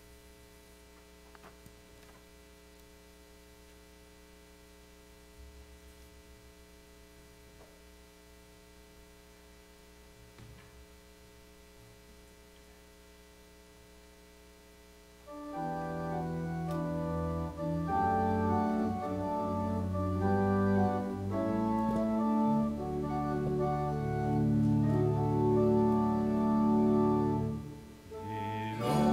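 A faint steady electrical hum with a few small clicks, then, about halfway through, a Yamaha electronic keyboard on an organ sound starts playing held chords, the introduction to a hymn.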